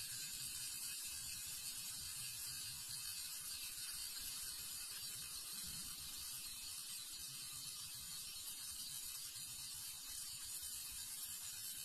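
Handheld fidget spinner whirring on its bearing: a steady, fast rattle under a constant high hiss.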